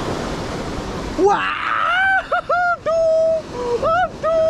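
Waves breaking on a rocky breakwater, then about a second in a high-pitched voice takes over with long, drawn-out notes and short rising-and-falling ones, the surf dropping away abruptly beneath it.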